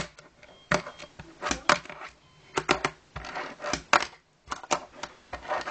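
Fingerboard deck and wheels clacking on a tabletop as the board is popped, flipped and landed for kickflips: a string of sharp clicks and taps at uneven intervals, several in quick pairs.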